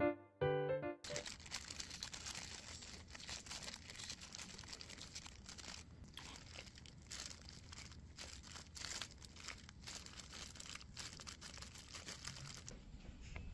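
A piano tune ends about a second in. Then comes a continuous run of soft, irregular crackles and rustles: a thin plastic glove crinkling and mandarin peel and segments tearing as hands peel and pull the fruit apart.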